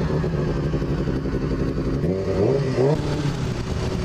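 Honda CBR600F4's inline-four engine running as the motorcycle rides, with wind noise on the helmet microphone; the engine rises in pitch about two seconds in, then drops back just before three seconds.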